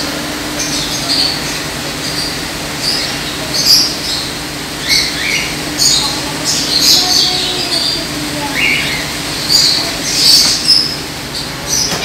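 Small caged parrots chirping and squawking: many short, shrill calls, some dropping in pitch, scattered throughout, over a steady low hum.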